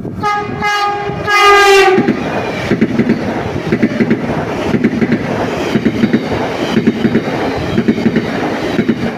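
A train sounds its horn in three blasts, two short and then a longer one, then runs past with a loud rumble and the rhythmic clatter of its wheels over the rails.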